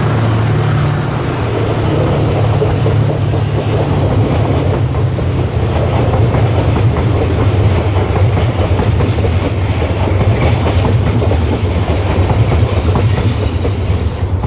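The Seven Stars in Kyushu train passing: a steady low drone from its diesel locomotive, then the carriages' wheels clattering over rail joints, the clatter getting louder from about halfway through.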